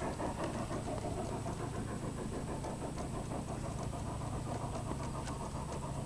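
Gauge One (1:29 scale) model train cars rolling across a steel trestle bridge: a steady low rumble with many small clicks of wheels on the rails.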